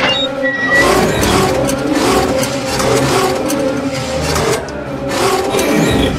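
Mechanical whirring and clattering: a machine-like sound effect for a robot Pac-Man ball moving.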